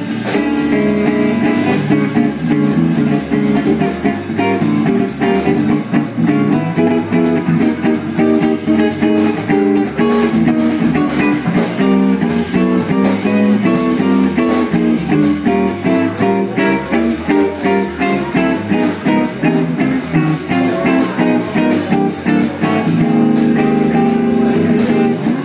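Red semi-hollow-body electric guitar playing blues live, a steady stream of quickly picked notes.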